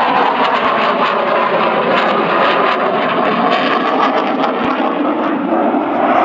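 A MiG-29 Fulcrum's twin RD-33 turbofan jet engines during a display flight: a loud, steady rushing jet noise with a faint crackle.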